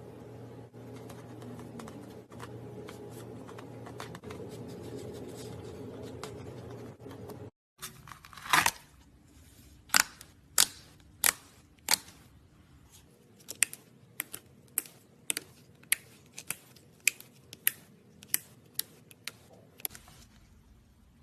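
Slime being played with: a steady low hum, then, after a brief break, a run of sharp crisp clicks and snaps from the slime, first spaced out and then coming about twice a second.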